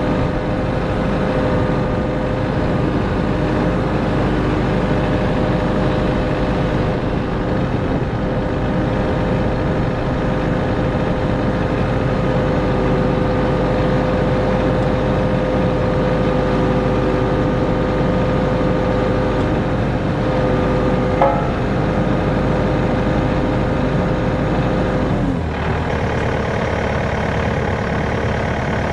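Kubota KX080-3 excavator's diesel engine running steadily at constant speed, a loud, even hum. About 25 seconds in the deep part of the sound drops and changes.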